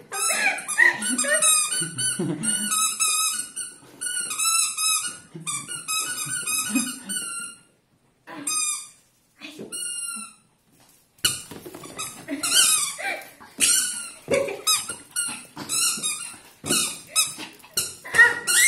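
Squeaky dog toy squeezed over and over in quick runs of short, high squeaks, thinning to a couple of squeaks for a few seconds in the middle before picking up again.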